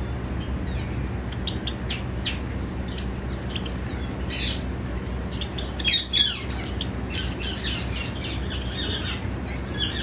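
Caged Java sparrows calling: scattered short, high chirps, with a louder burst of calls about six seconds in and again at the very end, over a steady low hum.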